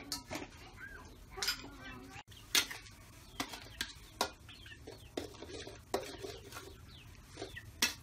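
Metal spatula scraping and knocking against a steel wok as food is stirred, in irregular strikes, with a chicken clucking.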